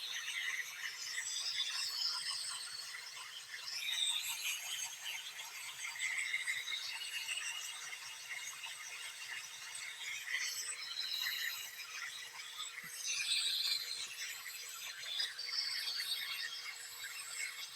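Grinding, squealing noise from the serpentine belt drive of a running 2012 Chevy Tahoe's 5.3 V8, coming from a failing belt tensioner pulley. The noise swells and fades unevenly, loudest about four seconds in and again past twelve seconds.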